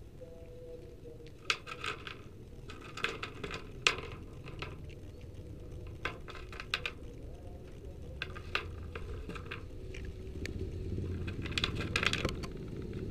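A cat crunching dry cat food in short, irregular bursts of chewing, with a few sharp clicks. A low rumble swells in the last few seconds.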